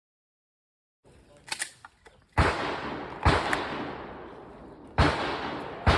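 Four gunshots, starting about two seconds in and spaced one to two seconds apart, each trailing off in a long echo. A few faint clicks come just before the first shot.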